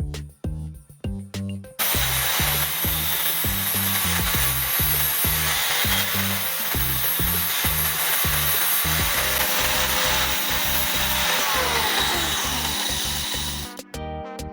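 A power tool running under load, a loud steady harsh noise that starts about two seconds in and stops near the end. Background music with a steady bass beat plays underneath.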